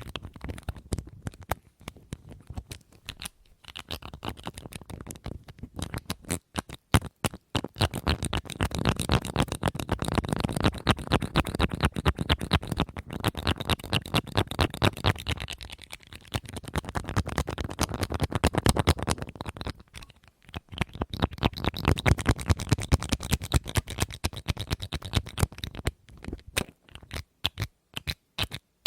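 Rapid fingernail tapping and scratching on a small object, in quick flurries with short pauses, slowing to separate taps near the end.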